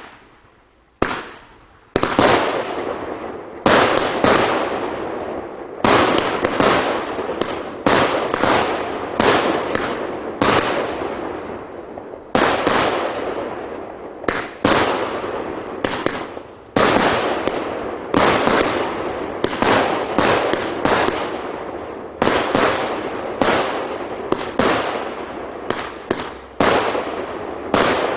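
TB 64 Big Star Tropic firework battery firing shot after shot: sharp reports, each trailing off, two single shots about a second apart, then a steady run of roughly one to two shots a second from about two seconds in.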